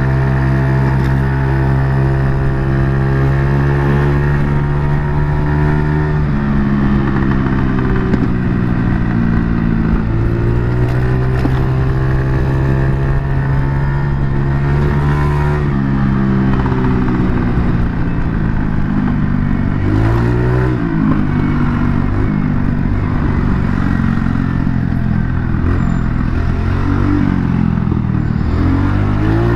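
A 50 cc Kuba Blueberry scooter's engine running through an aftermarket Akrapovic exhaust while riding. Its pitch falls and rises several times as the throttle is eased and opened again, with quick rev swoops about two-thirds of the way in and near the end.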